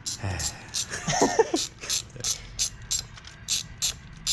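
Steady mechanical clicking, evenly spaced at about three clicks a second, with a brief voice sound about a second in.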